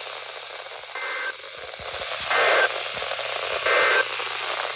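Three short bursts of SAME digital data tones on NOAA Weather Radio, about a second and a third apart, a harsh two-pitched electronic screech over steady radio hiss. Coming right after a warning's closing line, they are the EAS end-of-message signal that marks the close of the alert.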